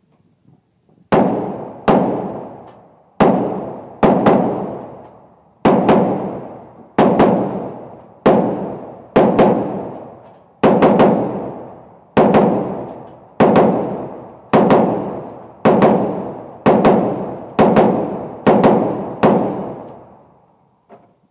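AR-15 rifle firing a string of about fifteen to twenty semi-automatic shots, roughly one a second and sometimes in quick pairs. Each shot echoes and dies away slowly in an indoor range.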